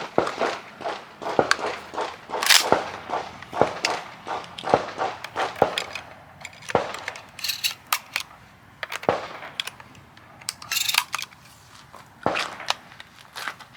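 Gunfire: a string of irregular sharp shots, about one or two a second, some louder and some fainter.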